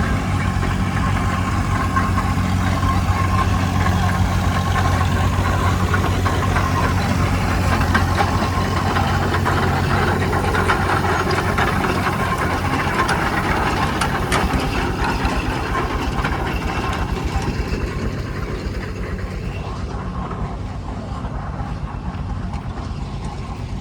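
Engine of an old Advance road grader running steadily close by as it works the road, easing off and growing quieter in the last few seconds.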